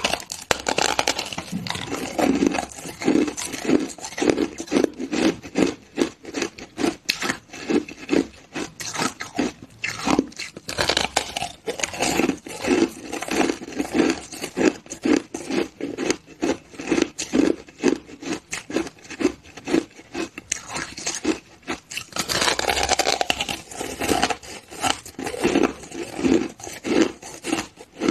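A person biting and chewing granular, crushed ice moulded into a flower shape, held right at the mouth: a dense, continuous crackle of crisp crunches over a steady chewing rhythm of about two chews a second. The crunching starts suddenly and stays loud throughout.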